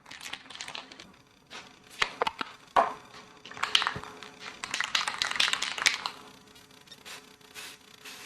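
A few sharp clicks and knocks, then a hiss lasting about two and a half seconds, as Rust-Oleum satin black paint-plus-primer is sprayed from an aerosol can onto a small metal part.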